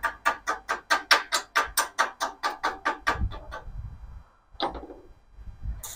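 Rapid, even clicking at about four to five a second that fades out after three or four seconds, then one sharp click near five seconds. Just before the end a steady crackling hiss starts: a MIG welder's arc being struck.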